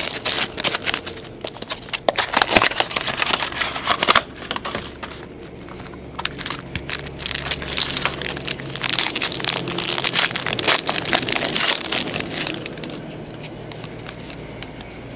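Foil wrapper of a baseball trading-card pack crinkling and crackling as it is handled and opened. The crackling comes in loud bursts and dies down over the last few seconds.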